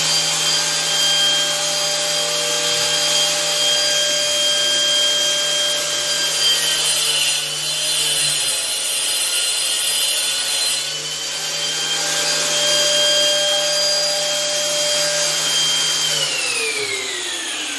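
Angle grinder with a masonry-cutting disc cutting into a ceramic-tiled concrete wall: a steady motor whine over grinding noise. Near the end it is switched off and winds down with a falling whine.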